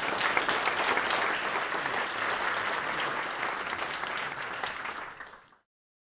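Audience applauding with many hands clapping, tapering off and then cut off abruptly near the end.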